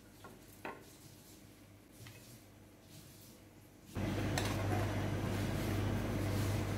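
A metal spoon clicks faintly against a steel pot of boiling shrimp a few times. About four seconds in, a loud steady rushing noise from the pot boiling hard on the gas stove comes in suddenly, with a low hum underneath.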